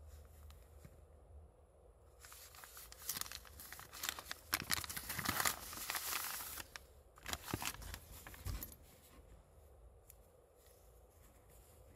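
A crinkly orange packaging bag being handled and opened by hand. The rustling crinkle builds about two seconds in, is loudest in the middle, and dies away after about nine seconds as the gloves come out.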